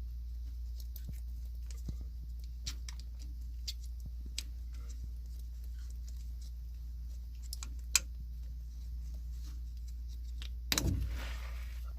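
Small scattered clicks and taps from hands working thread tape onto a water pipe, over a steady low hum. A sharper click comes about eight seconds in, and a brief rustle comes near the end.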